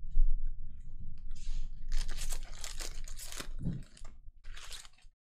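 Foil wrapper of a Panini Mosaic trading card pack being torn open by hand: a run of crinkling, ripping rustles, with a shorter crinkle near the end.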